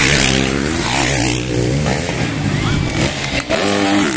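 Motocross bikes revving hard as they race past, one after another, the engine pitch rising and falling with the throttle; a second bike revs up near the end.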